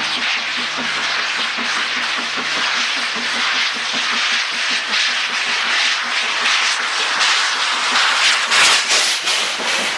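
BR Standard Class 4 4-6-0 steam locomotive working up the line with its cylinder drain cocks open. A loud hiss of steam runs over a chuff of exhaust beats, about four a second. The sound grows louder as the engine draws level about eight seconds in.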